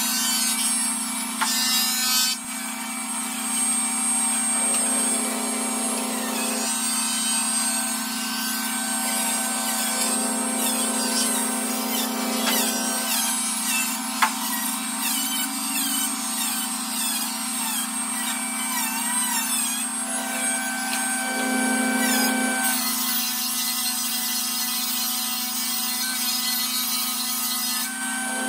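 Table saw running steadily, its circular blade ripping a long wooden plank fed along the fence, with the motor's hum under the cutting noise. A single sharp knock sounds about fourteen seconds in.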